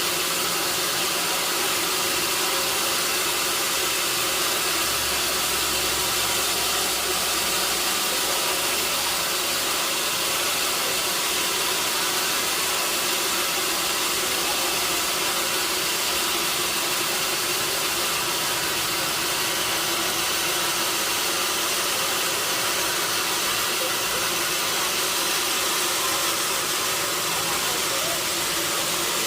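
Sawmill machinery running steadily: a constant, even noise with an engine hum underneath. The hum is a little stronger a few seconds in.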